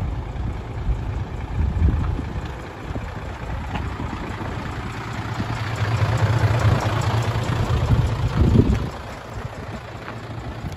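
Hino Ranger's J08C inline-six diesel engine idling with a steady low rumble, louder for a few seconds in the middle.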